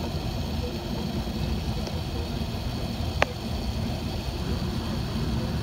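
Steady low cabin rumble of an Airbus A380-861 rolling along the ground, heard from a window seat. A single sharp click about three seconds in.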